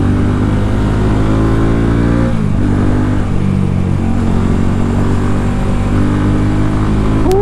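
Fekon 3GP motorcycle's engine and exhaust under way: the engine note climbs, drops sharply about two seconds in, then holds steady and starts climbing again near the end.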